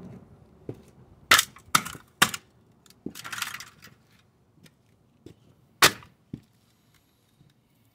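Sharp clacks of a cowboy boot and thin crushed tin on concrete: three in quick succession, a brief crinkling rustle of the tin, then one more loud clack near the end as the boot comes down on the flattened tin.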